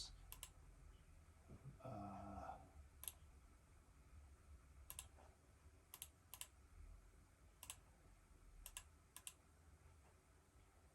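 Quiet, scattered clicks from operating a computer, a second or more apart and sometimes in quick pairs, over a faint low hum. A short soft sound comes about two seconds in.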